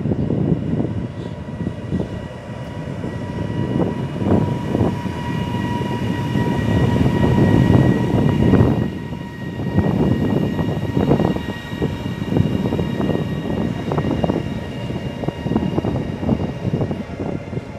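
Electric freight train passing slowly: a Captrain E.494 (Bombardier TRAXX) locomotive and its car-transporter wagons. A steady rumble of steel wheels on rail is broken by frequent clicks over rail joints, with a thin whine from the locomotive's traction equipment as it goes by. The train is slowing to stop at the station.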